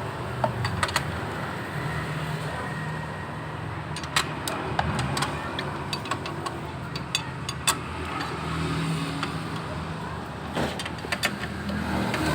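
Scattered metallic clicks and taps of hand tools working on a scooter's parts, over a steady low hum.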